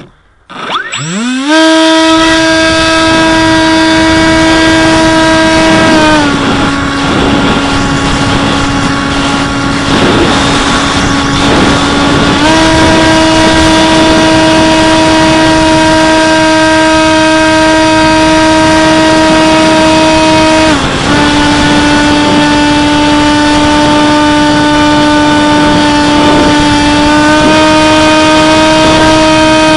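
Electric motor and propeller of a Bixler RC plane, heard from the plane's own camera, with wind rush. About a second in it spools up from silence into a steady high whine as the plane is hand-launched. The pitch drops at about six and twenty-one seconds and rises again at about twelve seconds and near the end as the throttle is changed.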